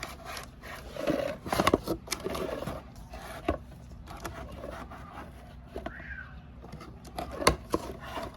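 Metal parts of clutch master cylinders clicking, knocking and scraping as they are handled and set against each other. The sounds come in a cluster in the first few seconds, with a single sharper knock near the end.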